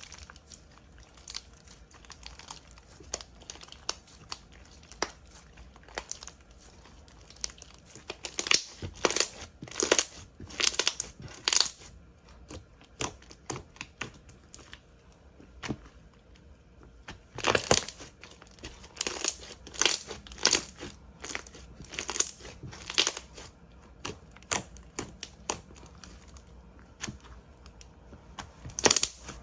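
Slime being squeezed and worked by hand: irregular crisp crackles and snaps that come in clusters, with quieter gaps between.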